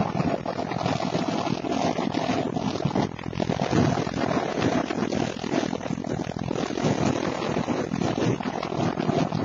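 Road and engine noise inside a vehicle at highway speed: a steady low engine hum under a constant rush of tyres and wind.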